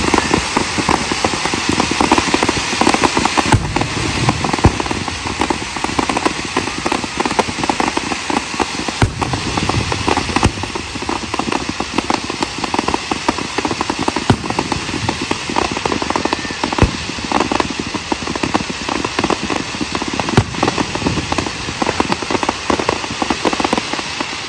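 Fireworks going off: a dense, unbroken crackle of many small rapid reports, with occasional louder bangs among them.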